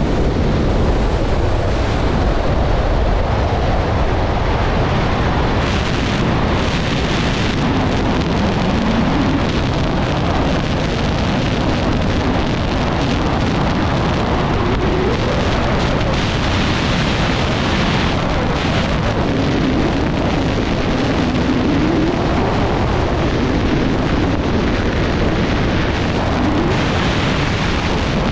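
Loud, steady rush of airflow over a wingsuit flyer's head-mounted camera microphone during high-speed flight, with a faint tone wavering up and down now and then beneath the rush.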